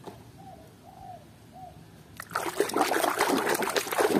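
Water splashing and trickling in a tub as a plastic toy is scrubbed and rinsed by hand; it starts a little past halfway and is the loudest sound. Before it, in near quiet, three faint short coos.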